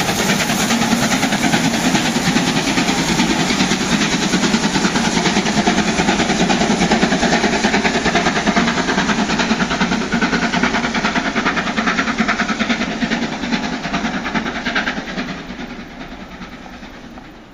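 Steam-hauled passenger train, rebuilt Bulleid West Country Pacific 34046 "Braunton" and its coaches, running past with a steady clatter of wheels on the rails. It fades away over the last few seconds as the train recedes.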